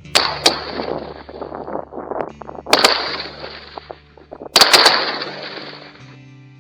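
Several shotguns fired at ducks in quick volleys: two shots, then two more about two seconds later, then three in rapid succession, each trailing off in a long echo.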